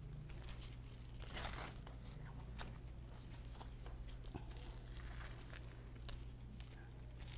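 Faint rustling and scraping, with a few soft clicks, as a strap tourniquet is wrapped and pulled tight around an upper arm.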